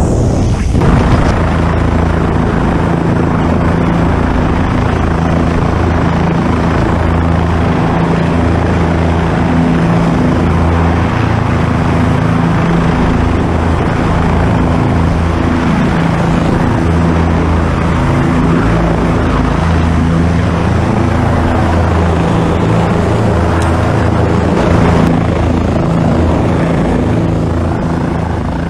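Rescue helicopter's rotor and engine running steadily and loudly overhead, heard from a rescuer hanging on the hoist cable beneath it, with a deep, steady drone under a rushing noise.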